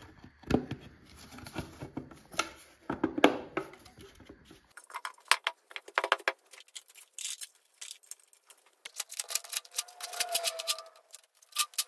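Clicks, knocks and rattles of parts being handled on a bare engine: a plastic timing-belt cover being fitted, then lighter, thinner clicking of small metal bolts being worked by hand, with a short wavering tone near the end.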